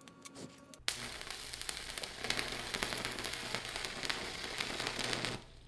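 Stick welding arc from a VEVOR MIG-130 3-in-1 welder at 105 amps with a 6013 electrode: after a few faint ticks, the arc strikes about a second in and crackles steadily with a low hum under it for about four and a half seconds, then cuts off. It is a sustained arc laying a bead.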